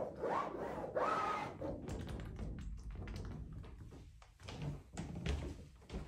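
Paint applicator tip dragging and tapping on a large canvas. It makes a couple of squeaky rising squeals in the first second or so, then a quick run of light taps and ticks as short strokes are dabbed on.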